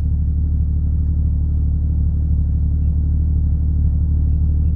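An off-road vehicle's engine idling close by, a steady low, even rumble that does not change.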